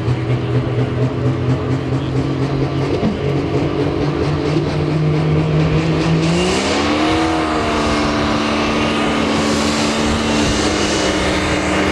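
Super stock diesel pulling tractor (a Case IH) running hard at the starting line, then revving up about six seconds in and holding at higher revs with a high turbo whistle as it builds boost before launch.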